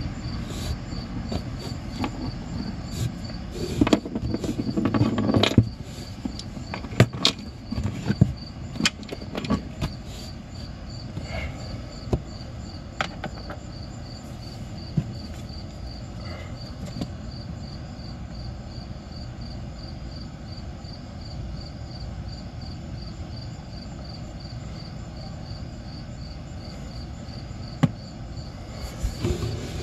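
Crickets chirping steadily, a regular high pulsing that runs under everything. Over it come scattered clicks and knocks from hand work at the snowmobile engine's oil injection pump mounting, clustered in the first ten seconds or so and then growing sparse.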